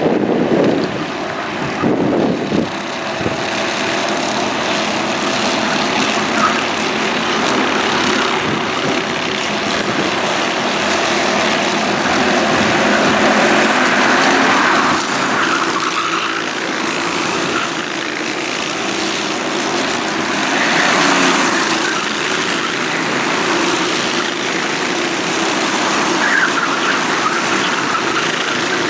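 Racing go-kart engines running as several karts drive past on the track, the engine pitch rising and falling as each one passes and accelerates.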